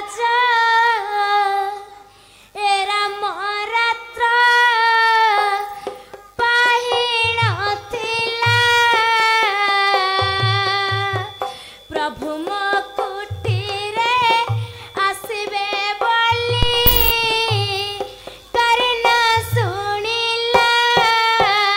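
A female voice singing a melodic, ornamented song in phrases, with low drum beats joining in about seven seconds in and recurring in a steady pattern.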